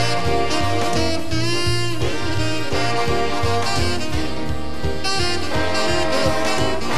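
Background music: an upbeat jazz tune led by saxophone and brass over a steady beat.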